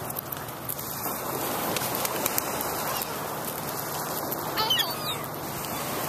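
A flock of gulls calling over one another, a dense overlapping clamour, with one nearer gull's call standing out and loudest about four and a half seconds in.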